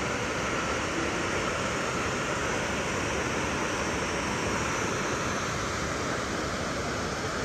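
Wadi Darbat waterfall rushing steadily, an even roar of falling water with no change.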